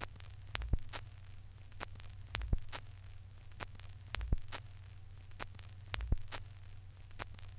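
Vinyl LP run-out groove playing after the music ends: surface hiss and a steady low hum, with a sharp click about every 1.8 seconds, once per turn of the record at 33⅓ rpm.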